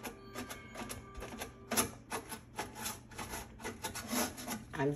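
Scrubbing inside a microwave oven: quick, irregular scraping and clicking strokes, several a second.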